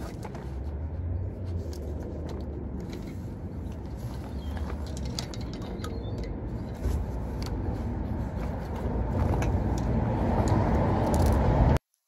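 Wind buffeting the microphone in a steady low rumble, with scattered clicks and rattles from a pushchair frame being folded down. The sound cuts off abruptly near the end.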